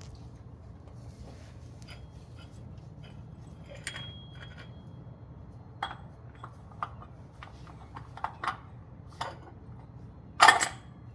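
Scattered metallic clinks and taps of an oil filter cap wrench being worked on a Toyota Corolla's oil filter housing cap, with one louder clatter near the end.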